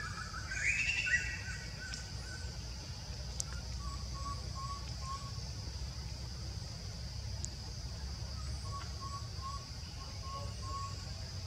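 Forest ambience: a steady high drone runs throughout, with one short rising squeal-like call about a second in. Later come two faint runs of short, evenly spaced notes, about three a second.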